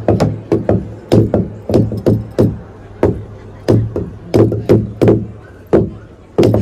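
Wooden beaters pounding a Naga log drum, a huge hollowed tree trunk. Several players strike unevenly, about three heavy hollow blows a second, and each leaves a low ringing boom.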